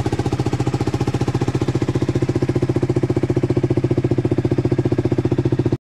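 KTM RC's single-cylinder engine idling steadily with a rapid, even beat, then cutting off suddenly.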